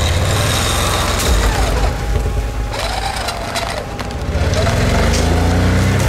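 Off-road 4x4 engine running under load, revving up in the last couple of seconds.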